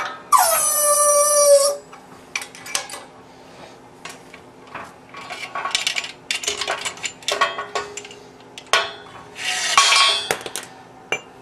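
Steel rifle parts and hand tools clinking and clattering on a workbench while the AK barrel is fitted in its trunnion. Near the start comes a loud squeal of just over a second that drops in pitch and then holds, and a scraping rattle follows about ten seconds in.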